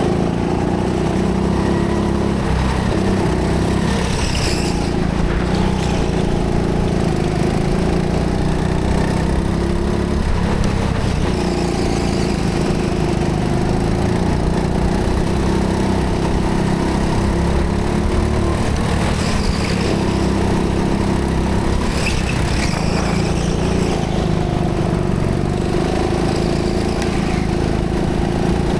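Go-kart engine running continuously at speed, heard from the driver's seat, its pitch steady with a few brief dips. A few short higher-pitched noises come about 4 seconds in and again near 22 seconds.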